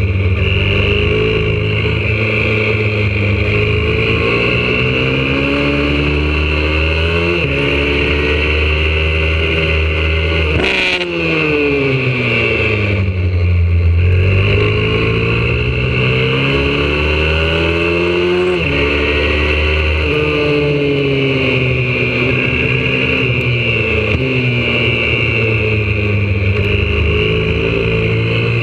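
Single-cylinder engine of a YCF 125cc four-stroke pit bike running hard on a track, heard from on board. Its pitch climbs through the gears with a brief dip at each upshift, then falls steadily under braking and downshifts about eleven seconds in, after a short sharp knock, before winding up again.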